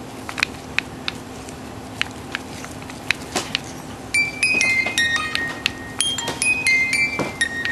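Old handmade jester baby rattle being handled, giving scattered sharp clicks. About four seconds in, its built-in music box starts plinking a tune in high, ringing notes that step from pitch to pitch.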